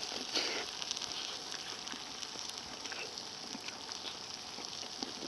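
Wood campfire burning with a steady hiss and scattered small crackling pops.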